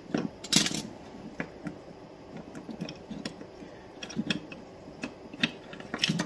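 Scattered small clicks and taps as wires and the plastic trigger-switch assembly of a cordless impact driver are handled on a wooden workbench. The loudest clicks come about half a second in and just before the end.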